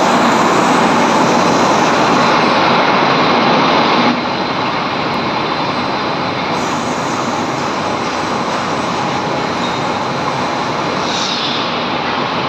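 Steel hot rolling mill running: a loud, steady industrial din from the rolling stands, motors and roller table as red-hot steel bar passes through, a little quieter from about four seconds in, with a faint steady high whine.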